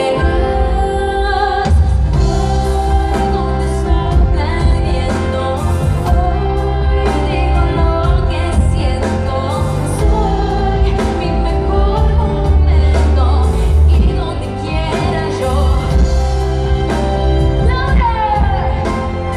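Live pop song played loud through an arena's sound system: a female vocal over a band with a heavy, steady bass.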